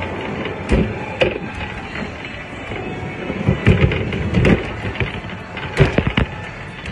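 Irregular thumps and knocks over a rough, noisy rumble, the sound of a phone being handled and its microphone rubbed and bumped. The knocks bunch together around the middle and again near the end.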